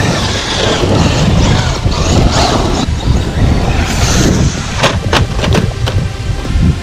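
Traxxas Unlimited Desert Racer RC truck driving hard over rough ground, a dense rumble of tyres and drivetrain, with a quick run of sharp knocks about five seconds in.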